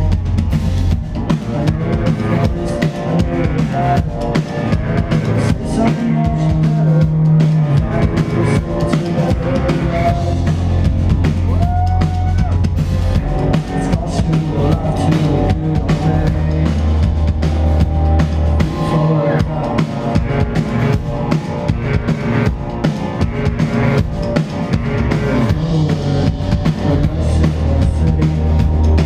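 Hardcore band playing live and loud: a drum kit with bass drum and snare hits over dense electric guitar and bass, the bass holding long low notes.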